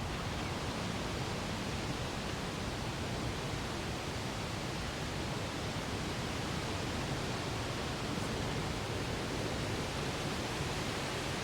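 Wind blowing across the microphone: a steady rushing noise with a flickering low rumble.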